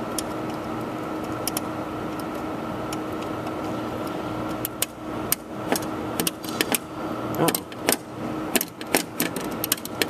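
Irregular clicks and taps of a TV's control knob and shaft being worked back into the volume/power switch, coming in quick clusters from about halfway through, over a steady background hum.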